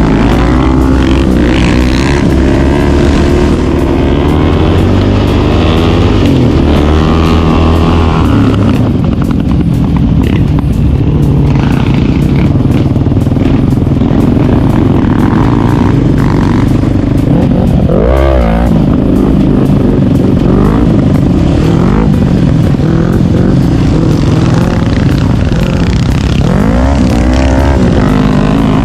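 Quad (ATV) engine running loud under riding load, its pitch repeatedly rising and falling as it revs up and eases off, with a quick sharp rev about two thirds of the way through.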